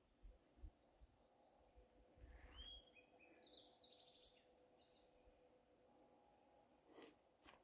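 Near-silent forest ambience, with a faint bird chirping several times in the middle and a single faint click near the end.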